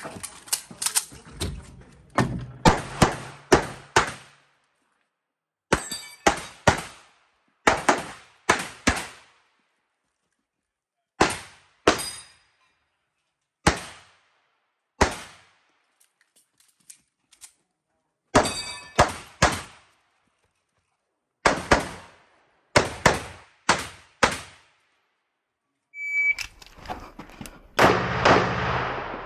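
Pistol shots fired in fast pairs and short strings during an IPSC stage run, with silent gaps as the shooter moves between positions. About 26 seconds in a shot timer gives its short high start beep, and a rapid string of shots follows.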